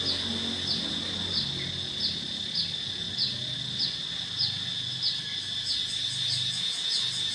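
Insects shrilling: a steady high-pitched buzz with a short chirp repeating about every half second, the chirps coming faster over the last couple of seconds. A faint low rumble runs underneath.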